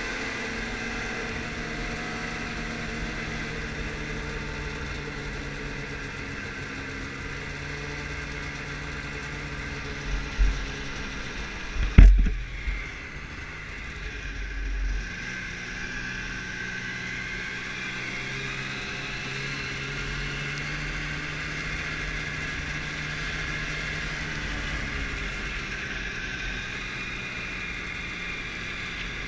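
Arctic Cat snowmobile engine running at riding speed, heard from a mount on the sled, its pitch dipping and rising as the sled slows and speeds up. A few loud thumps come in the middle, the sharpest a single knock about twelve seconds in.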